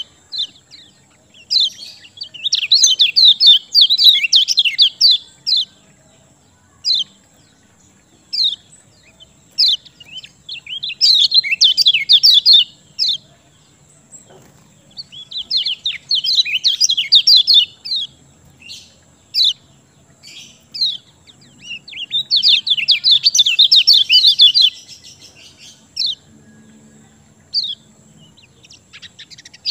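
Kecial kuning songbird singing: four bouts of rapid, high chirping song a few seconds long, with single sharp chirps between the bouts.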